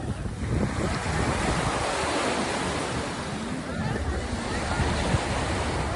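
Sea waves washing in as a steady rushing hiss that swells about half a second in, with wind buffeting the microphone.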